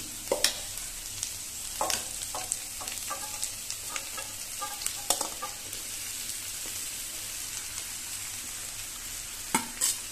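Vegetables sizzling in hot oil in a steel kadai while cooked rice is tipped in from a steel vessel and pushed off with a steel ladle. Sharp clinks and scrapes of the ladle on metal come every few seconds, with a quick cluster of them near the end.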